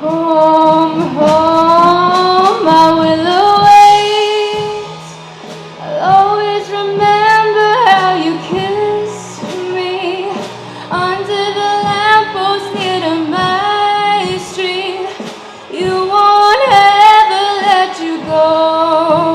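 A female singer with accompaniment, singing long held notes that slide and bend in pitch, with no clear words, over a steady low backing.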